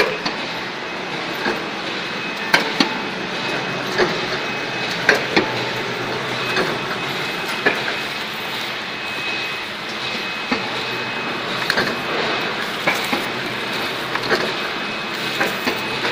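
Manual-feed corrugated carton die-cutting and creasing machine running: a steady mechanical noise with a thin high whine, broken by irregular sharp clanks and clicks.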